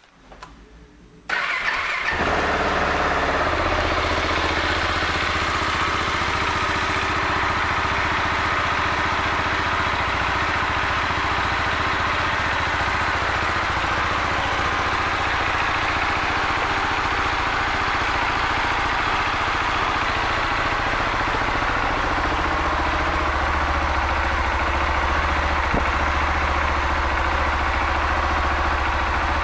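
KTM 690 Duke's single-cylinder engine cranking and catching about a second in, then idling steadily.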